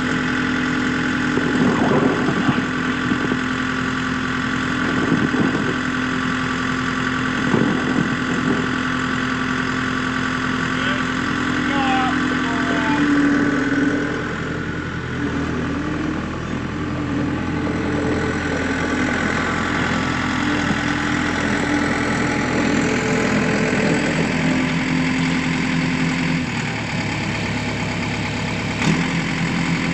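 A farm machine's engine running steadily, with a few knocks in the first several seconds and a shift in its note about midway.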